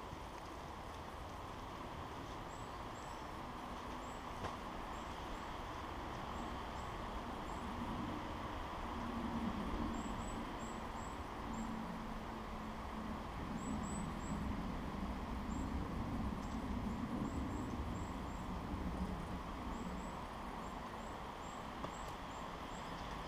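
Woodland ambience: a steady background rush with a small bird giving short, high, thin calls again and again. A low drone swells and fades through the middle.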